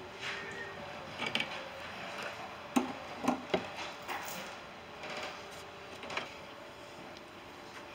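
Hands and tools working on car parts: scattered clicks and knocks, with three sharp ones close together about three seconds in, and some rubbing and scraping between them.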